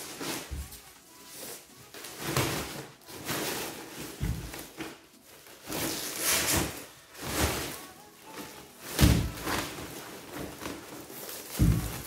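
Clear plastic bag wrapping a loudspeaker cabinet rustling and crinkling in repeated swishes as it is pulled off by hand. Four dull thuds come in among the rustling, the loudest about nine seconds in.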